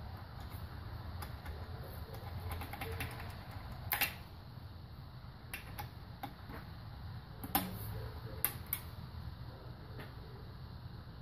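Long-handled wrench and socket clicking and knocking on the cylinder head bolts of a Toyota 1ZZ-FE engine as they are tightened down. There are a few sharp metal clicks, the loudest about four seconds in and a cluster between seven and a half and nine seconds in, over a low steady hum.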